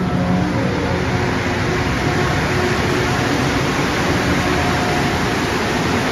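Rubber-tyred MR-73 metro train running past along the platform: a loud, steady rumble of its tyres and traction motors, with faint whining tones coming and going in it.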